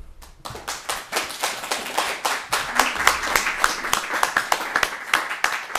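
A small audience applauding: many hands clapping at once, starting about half a second in and going on steadily.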